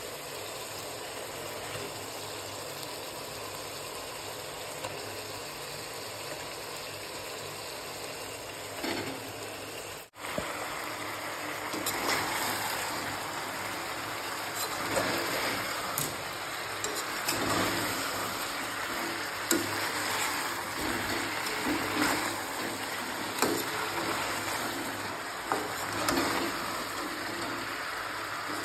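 Masala-coated fish pieces frying in a steel kadhai: a sizzle with irregular scrapes and clinks of a metal spatula against the pan as they are turned. Under it a steady low hum runs throughout, and a steadier hiss fills the first ten seconds before a brief cut.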